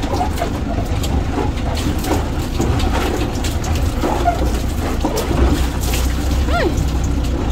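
Steady low rumble and road noise of a moving vehicle, with one short squeak rising and falling in pitch near the end.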